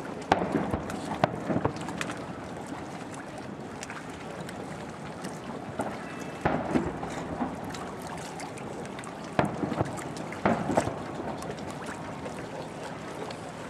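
Distant aerial firework shells bursting: sharp bangs at irregular intervals, several in the first two seconds, another about six and a half seconds in and a cluster around ten seconds in, over a steady background hiss.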